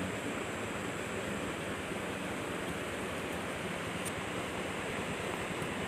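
Steady rushing of flowing river water: an even, unbroken hiss.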